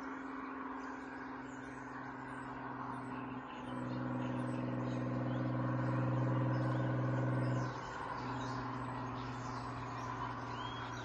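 A car engine droning at a steady pitch, growing louder for about four seconds in the middle and then dropping back, with birds chirping faintly.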